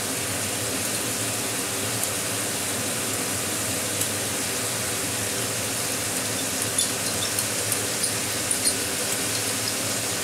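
Masala-coated cauliflower sizzling steadily in a frying pan on a gas flame, with a few small crackles and pops in the second half as melted ghee is drizzled over it.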